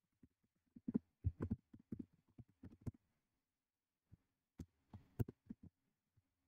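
Computer keyboard being typed: a quick run of key clicks, a short pause, then a few separate key presses, over a faint steady hum.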